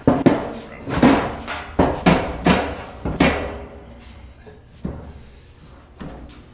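Heavy metal 16-inch powder cans knocking against each other and the rack as they are shoved into place: a quick run of loud clanks over the first three seconds or so, then a couple of lighter knocks.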